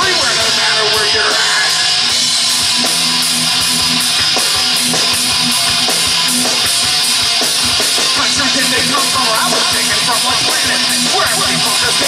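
A live rock band playing heavy, punk-flavoured music through amplifiers: electric guitar, bass guitar and a drum kit, with a singer on a microphone.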